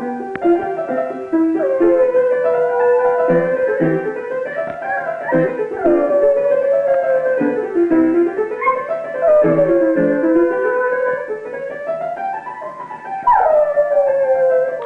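A West Highland White Terrier howls along with a piano being played: four long howls, each wavering and sliding up and down in pitch over the piano chords.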